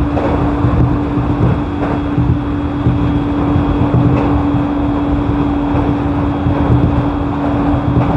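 JR East E531 series electric train running, heard inside the passenger car: a low rumble of wheels on the rails that swells and fades, under one steady hum.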